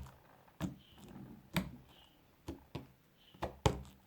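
Homemade slime being worked by hand, giving about six short, sharp clicks at irregular intervals.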